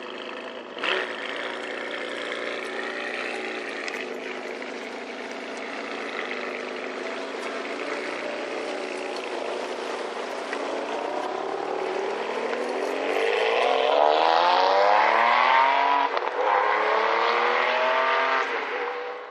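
Ferrari supercar engine running at a steady note, then about two-thirds of the way through accelerating hard and getting louder, its pitch climbing, dropping briefly at a gear change and climbing again.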